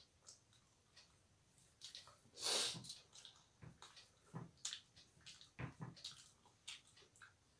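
Faint eating sounds from roti and omelette being eaten by hand: soft mouth clicks and smacks scattered through, with one short breathy rush of air about two and a half seconds in.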